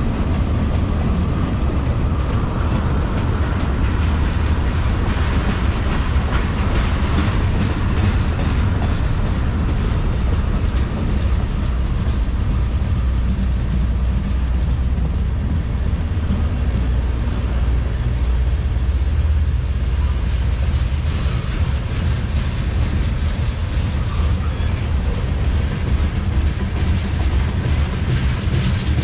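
Freight train cars rolling past close by: a steady low rumble of steel wheels on rail, with scattered clicks from the wheels, thickest in the first third.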